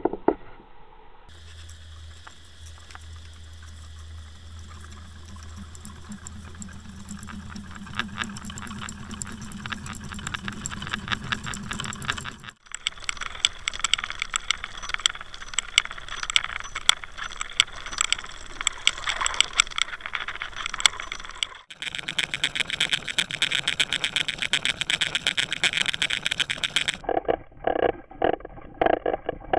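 Underwater sound of a fishing lure being pulled through the water on the retrieve: water rushing, with dense, rapid clicking and rattling from the lure and its hardware. It comes in several clips that cut abruptly from one to the next, and a low steady hum runs under the first long clip.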